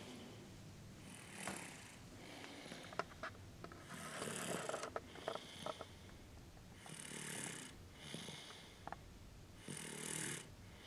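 Toddler snoring softly in her sleep, four slow breaths about three seconds apart, with a few faint clicks in between.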